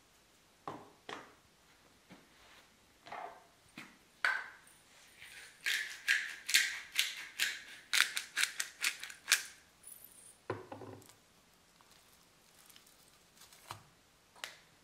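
Seasoning raw meat: a few light scattered ticks, then a pepper mill grinding in a quick run of crisp, crunchy clicks for about four seconds, followed by a short duller sound of the meat being handled and two more light ticks near the end.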